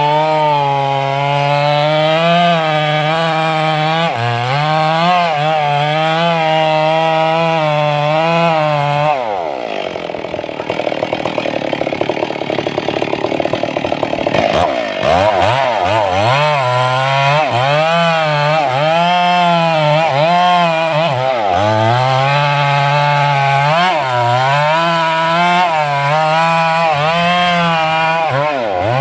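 Stihl 382 two-stroke chainsaw cutting wood at high revs, its pitch wavering and dipping as the chain takes load. About nine seconds in the revs fall away sharply into a few seconds of rougher, noisier running, then the saw revs back up and keeps cutting.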